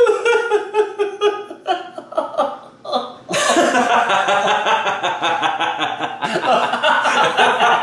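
A man's voice in the first second or so, then from about three seconds in a man laughing hard in a rapid, continuous string of ha's.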